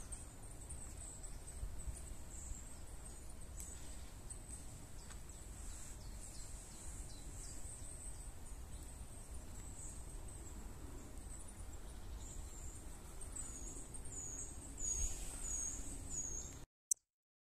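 Small songbirds calling in the woodland canopy: scattered thin, very high chirps, then a run of about five quick repeated notes near the end. A low rumble sits underneath, and the sound cuts off abruptly about a second before the end.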